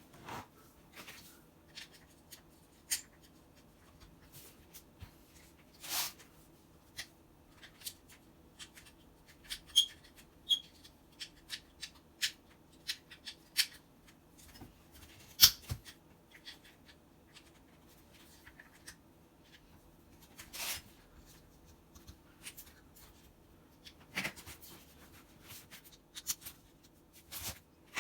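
Hand work on a hammer drill during its repair: scattered clicks, taps and short knocks of tools and parts being handled, a few of them louder, over a faint steady hum.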